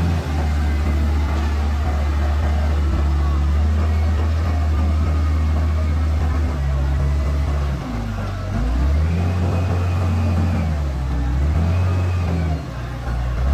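Wheel loader's diesel engine running hard under load as the bucket digs and lifts soil, its note dropping and then picking up again about eight seconds in, with a further change near the end.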